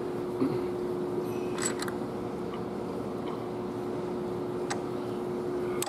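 Steady hum of a large shop floor fan, with a few faint, light metal clicks as rocker arms and the rocker shaft are handled and seated on a Cummins ISX engine head.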